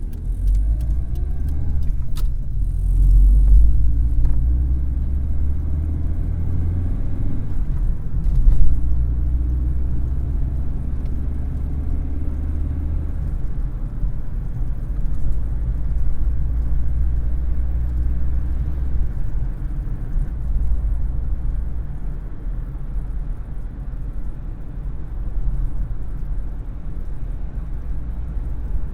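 Car engine running, heard from inside the cabin as a steady low rumble. Its pitch rises briefly at the start, and there is a single knock about eight seconds in.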